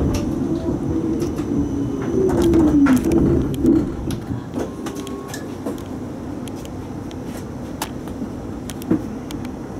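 Tram running along the street, heard from inside the driver's cab: a steady low rumble with scattered clicks and rattles, and a whine that falls in pitch about two to three seconds in. The rumble drops to a lower level after about four seconds.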